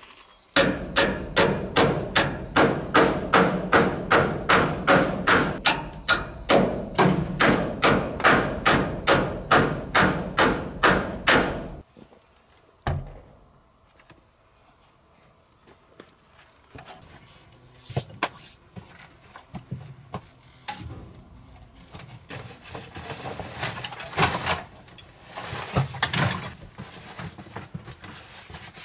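Hammer driving a nail into a wooden door frame: steady, loud blows about three a second for roughly eleven seconds, then they stop. Afterwards come scattered softer knocks and handling sounds.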